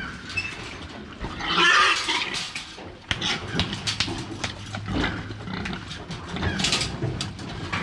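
Pigs squealing as they are driven into a metal pig crate, with one loud squeal about a second and a half in, and scattered knocks and clanks from the crate.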